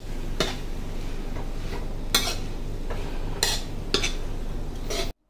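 A metal spatula stirring and scraping through a stir-fry of glass noodles, pickled mustard greens and egg in a wok, with several sharp clinks of metal on the pan over a steady low hum. The sound cuts off abruptly near the end.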